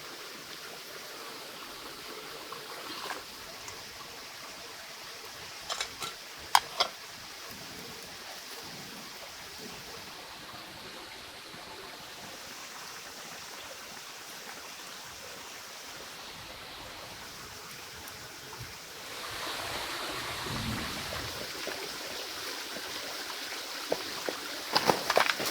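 Flowing stream water, steady throughout, getting louder about nineteen seconds in. A few sharp knocks break through about six seconds in and again in a cluster near the end.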